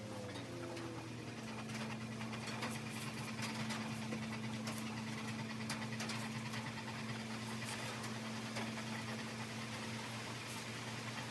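A small electric motor running steadily with a low hum, its pitch dipping briefly at the start and then holding even, with faint scattered ticks over a hiss.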